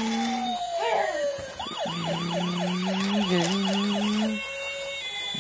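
Electronic siren sound effect from a battery-powered toy fire truck: a slow falling wail, then a fast repeating yelp of about three to four rising sweeps a second, over a steady low hum. It stops a little after four seconds in.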